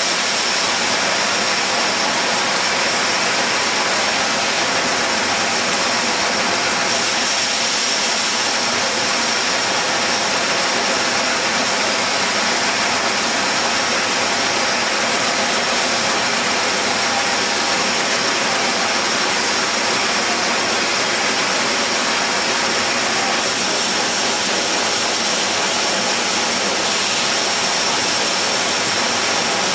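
Rotary bottle filler running at speed on a 36,000-bottle-per-hour glass-bottle line: a steady, loud hiss and whir with a high whine held through it.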